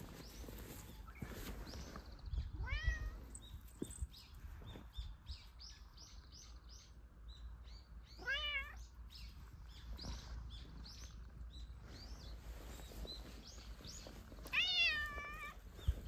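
A cat meowing three times, several seconds apart, the last call the loudest and longest. Small birds chirp faintly in the background.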